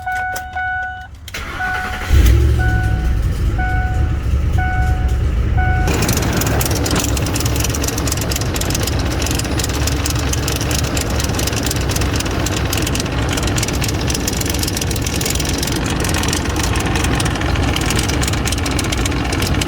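Ford F-150's 5.4-litre V8 cranked and started, with a warning chime beeping over the first few seconds, then running steadily. The strange engine noise is one the mechanic puts down to a damaged timing-chain tensor or guide, or a cam phaser, after a P0340 cam position circuit code.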